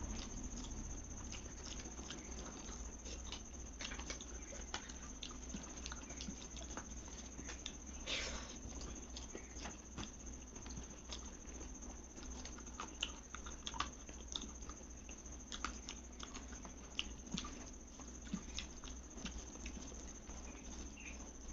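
A person eating a meal of rice and dal close to the microphone: soft wet chewing with many small irregular mouth clicks and smacks, over a faint steady high-pitched hiss.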